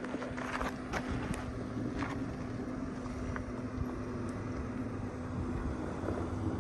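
Off-road vehicle driving on a trail: a steady engine drone over a low rumble. A few sharp clicks, like stones under the tyres, come in the first two seconds.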